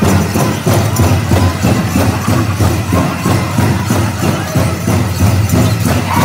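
Powwow drum group pounding a steady fast beat, about three strikes a second, for a Chicken dance song, with the jingling of the dancers' leg bells over it.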